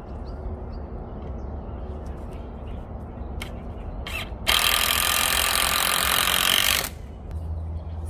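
Cordless drill running hard for about two seconds, starting about halfway in and cutting off sharply, driven into a timber beam. A couple of light clicks come just before it.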